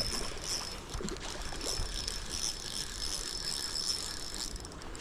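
Spinning reel being cranked while playing a hooked trout: a steady high whirr from the reel's gears with light repeated clicking as the line is wound in under tension.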